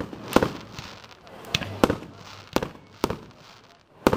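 Aerial fireworks bursting overhead: about seven sharp bangs at irregular spacing, each followed by a brief echo.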